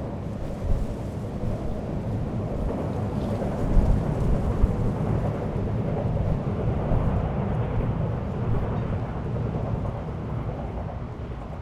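Wind buffeting an action camera's microphone in gusts, a deep, uneven rumble that swells to its strongest around four seconds in and eases off toward the end.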